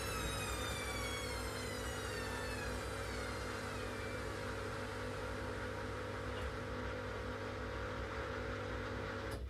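Washing machine running down: its motor whine falls steadily in pitch over the first few seconds as the drum slows, over a steady hum and low rumble. A click comes near the end and the sound drops away, as the machine stops.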